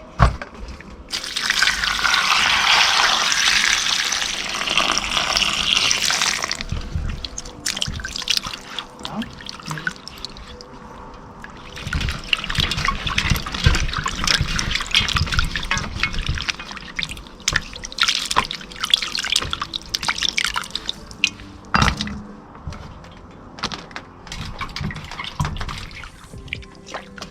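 Tap water running into a sink, then vegetables being rinsed and rubbed by hand under the water, with splashing and dripping and a sharp knock a little before the end.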